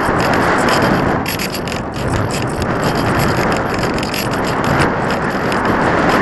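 Wind rushing over the microphone of an onboard action camera on an unpowered discus-launch glider in flight, loud and swelling and easing as it banks, with a rapid high rattle over it.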